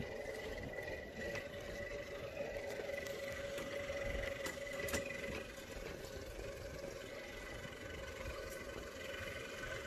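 Boat engine idling with a steady hum, the tow boat's motor holding at low speed while it backs the disabled sailboat into the slip.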